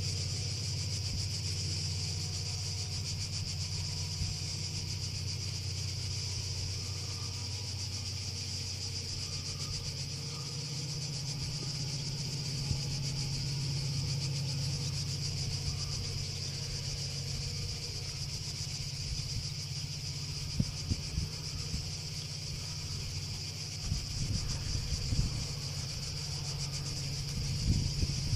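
Cicadas chirring in one steady high buzz, over a low steady drone. Rumbling bumps of wind on the microphone come in over the last few seconds.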